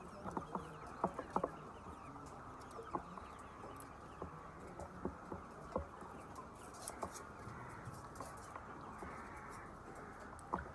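Chickens in a flock clucking, against a steady background hubbub, with many short, sharp clicks scattered irregularly through it.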